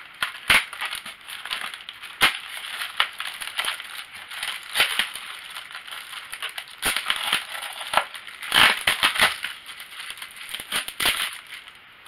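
Plastic bag of small parts crinkling and crackling as it is pulled free of a styrofoam packing insert, with irregular rustling and sharp snaps, busiest about two-thirds of the way through.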